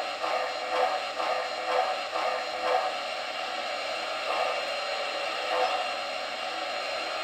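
MTH RailKing 2-8-0 Consolidation O-gauge model steam locomotive's Proto-Sound 2.0 system playing its standing sounds through the engine's small speaker: a steady steam hiss with soft pulses about once a second for the first three seconds, then the hiss alone.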